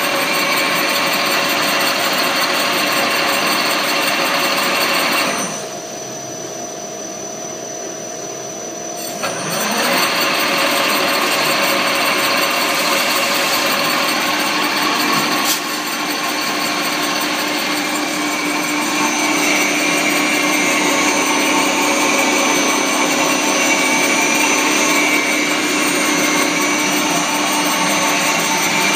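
Angeli AV-TZ vertical rotary wire coiler running and winding thin wire: a steady mechanical whir with several constant tones. About five seconds in it turns quieter and duller for about four seconds, then picks up again, with one sharp click about halfway through.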